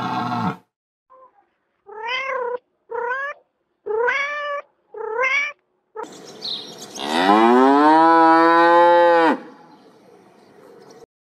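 A cat meowing four times, about a second apart, followed by a cow mooing once, a long call of about three seconds whose pitch slides down and then holds low.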